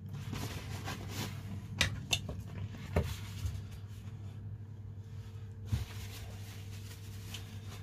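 Faint handling noise: a few soft clicks and knocks, the clearest about three seconds in, over a steady low hum.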